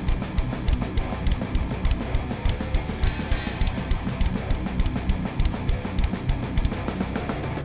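A heavy metal band playing live: rapid, steady drumming on a full drum kit under electric guitar.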